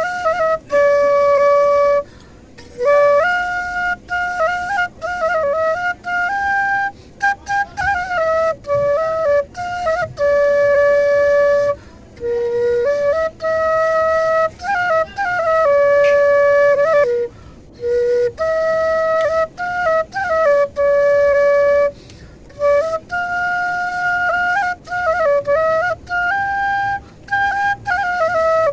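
Bansuri (bamboo flute) played solo: a melody of long held notes joined by quick ornamented runs, with short breaks for breath every few seconds.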